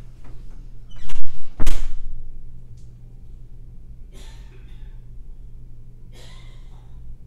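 Two loud thumps between one and two seconds in, then two faint, brief rustles, over a steady low hum.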